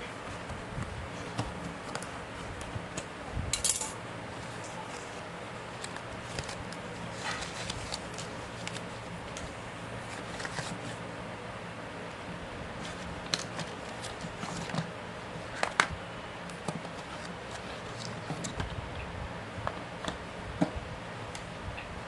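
Packaging and a small cosmetic product handled and opened by hand: scattered light clicks, taps and rustles over a steady low hum, the sharpest click about 16 seconds in.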